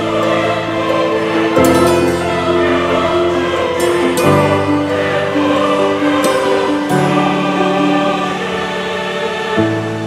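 Background music: sustained chords that change about every two and a half seconds.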